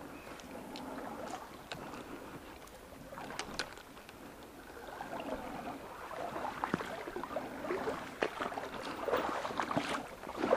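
Water in a shallow stream splashing and trickling, with scattered light clicks and knocks.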